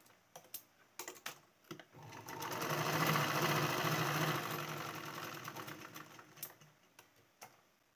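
Domestic sewing machine stitching a seam: a few clicks, then a run of stitching that builds up about two seconds in and slows to a stop around six seconds, with two more clicks near the end.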